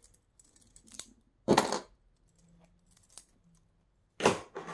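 Clear plastic nail-polish swatch sticks clicking and clattering as they are handled and set down on a table, in several short bursts, the loudest about a second and a half in and again just after four seconds.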